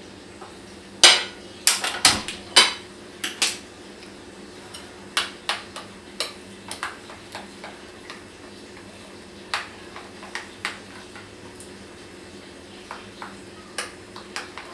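Irregular clinks and knocks of dishes and utensils against a gas stovetop, a cluster of loud ones in the first few seconds, then scattered lighter ones, over a faint steady hum.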